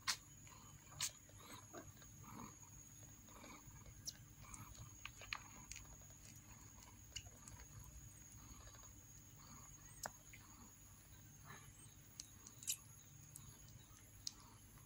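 Faint sounds of newborn kittens nursing on their mother cat: soft, short squeaks and scattered sharp little clicks over a steady low hum.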